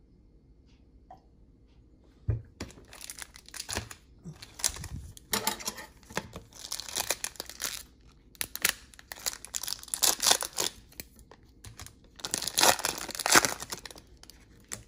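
Trading-card pack wrapper being torn open and crinkled by hand, in several bursts of crinkling that follow a single knock about two seconds in.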